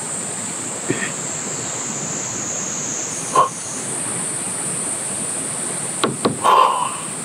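Steady high-pitched buzzing of insects in the trees, with a few short knocks and noises over it, the loudest cluster about six seconds in.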